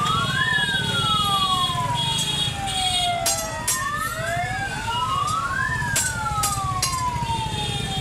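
Bank security alarm siren wailing, each cycle rising quickly in pitch and then falling slowly, repeating every few seconds. Passing street traffic rumbles underneath.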